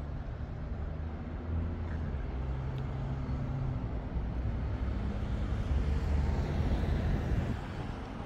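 Vossloh Tramlink tram rolling toward the microphone on curved track, a low rumble and motor hum that grows louder about five seconds in and eases off near the end. Road traffic runs underneath.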